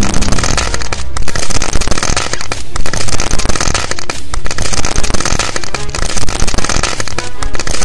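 Ground firework tube spraying a fountain of sparks and throwing stars up: a loud, continuous hissing, crackling rush that dips briefly about every one and a half seconds.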